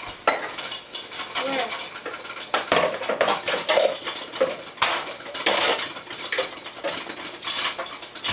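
Pots, pans and bowls clattering and knocking irregularly as they are shifted about while someone rummages through a kitchen cabinet for a bowl.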